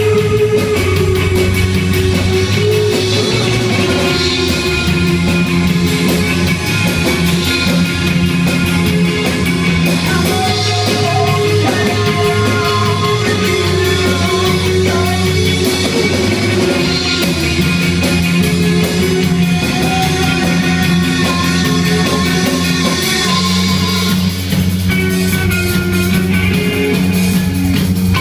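Indie rock band playing live, with electric guitars, keyboard and drum kit over a steady low bass line.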